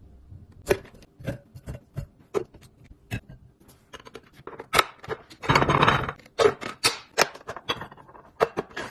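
Plastic storage containers and food packages being handled and set down in a refrigerator: a run of sharp clicks, taps and knocks, with a loud rustle lasting under a second about midway.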